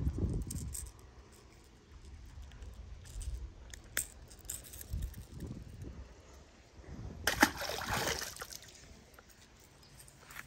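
A small largemouth bass let go back into the water with a splash about seven seconds in. Before it, scattered small clicks of handling.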